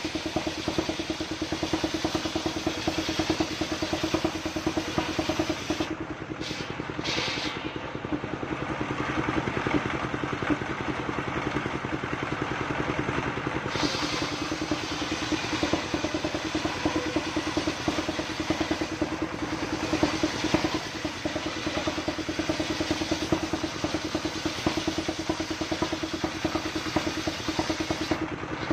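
Stationary engine of a mobile circular sawmill running steadily, driving the circular saw blade. In the middle, a hiss of the blade ripping through a coconut palm log rises over the engine and stops sharply about halfway through, as the slab comes off.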